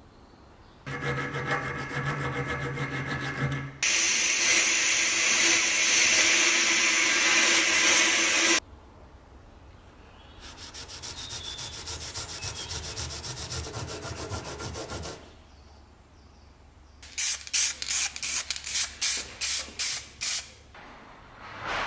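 Sanding in short, cut-together bursts. A motor-driven tool runs with a steady hum for a few seconds, then a louder stretch starts abruptly and stops suddenly. A softer, even run of sanding follows, then about ten quick separate strokes near the end.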